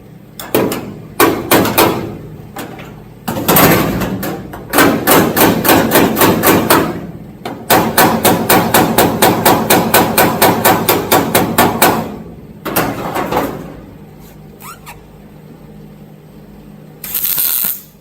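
Rapid hammering on steel body panel: a few single blows, then two long runs of quick, even strikes at about five a second. A short burst of steady noise near the end.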